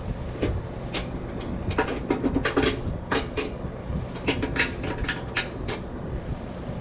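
Sharp metallic clinks and taps of tools and mower parts being fitted and tightened, in two quick clusters, over the steady hum of a running fan.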